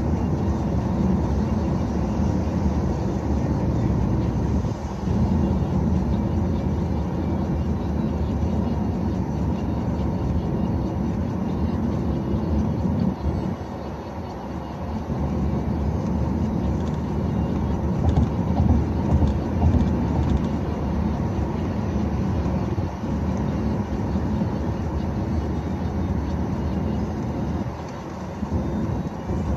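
Steady low rumble of a car's tyres and engine on the road, heard from inside the moving car, easing briefly twice.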